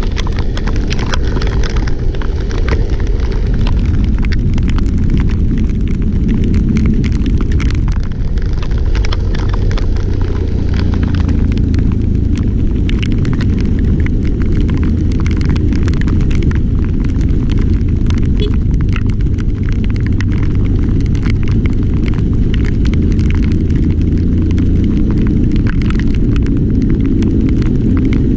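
Strong typhoon wind buffeting the microphone in a steady low rumble, with constant fine crackling from rain.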